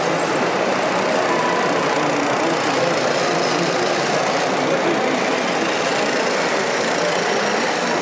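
Busy exhibition-hall din: indistinct crowd chatter mixed with the steady running of RC model machinery, at a constant level.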